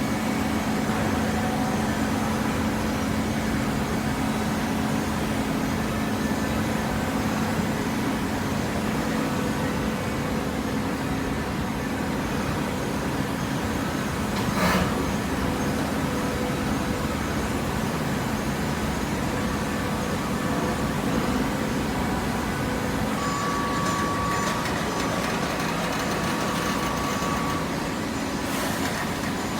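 Automatic waste paper baler running: a steady machine hum with a constant low tone, like a hydraulic power unit at work. A short loud burst of noise about halfway through, and a faint steady whine in the last few seconds.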